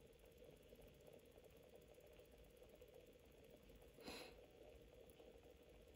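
Near silence: a faint steady electrical hum from the recording equipment, with one brief faint sound about four seconds in.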